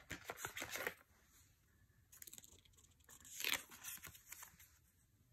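Tarot cards being handled and flipped by hand: short clusters of soft papery sliding and snapping, one at the start, a brief one about two seconds in, and the loudest around three and a half seconds in.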